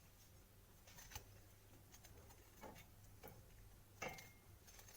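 Faint knife clicks as a lemon is cut into small pieces over the pot: a handful of soft, irregular ticks about a second apart.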